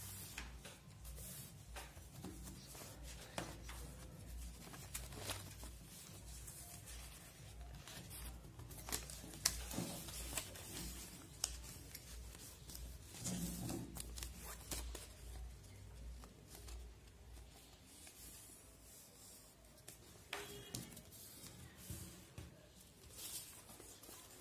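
Ruled notebook paper being folded and creased by hand: irregular rustles, crinkles and small taps, with a few sharper crackles in the middle.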